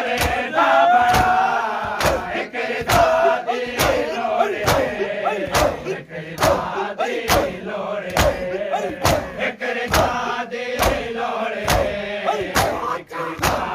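Crowd of men chanting a noha together, with a sharp, unison slap of hands on chests (matam) about once a second.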